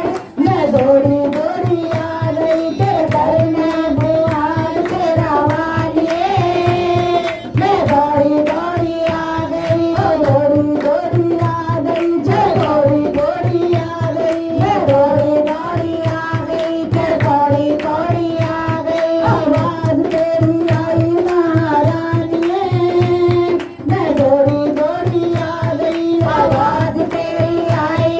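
Devotional bhajan music: a melodic line that holds notes and bends between them, over a steady, fast hand-drum beat.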